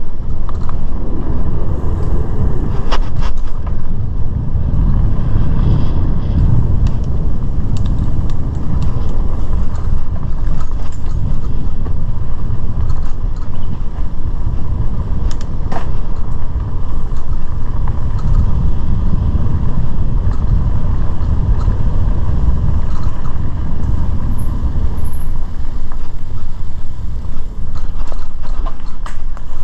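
Mountain bike ridden over a dirt trail: a steady, loud low rumble of wind buffeting the microphone and tyres rolling over the dirt, with scattered clicks and rattles from the bike and the ground.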